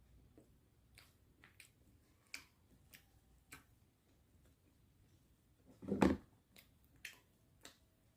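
Close-up eating sounds of a person chewing: scattered short, wet mouth clicks, with one louder, lower sound about six seconds in.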